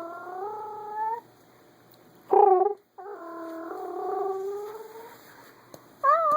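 A baby making long, drawn-out, Chewbacca-like vocal calls, each slightly rising in pitch. There are four calls in all: a long one at the start, a short loud one a little past two seconds in, a longer one from about three seconds, and another beginning near the end.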